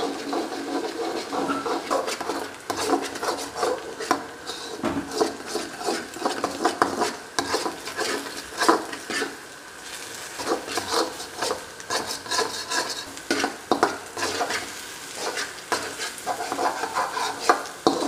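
Metal spatula scraping and tapping against an iron wok in quick, irregular strokes as eggs are broken up and scrambled, with the eggs sizzling underneath.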